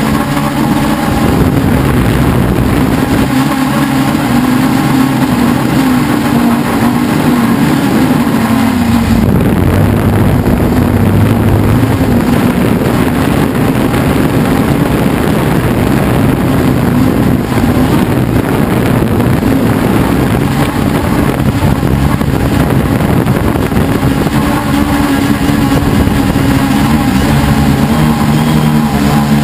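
Helimax Form 500 quadcopter's electric motors and propellers buzzing steadily in flight, heard from a camera mounted on the craft, with wind rushing over it. The pitch drops about nine seconds in and climbs back near the end.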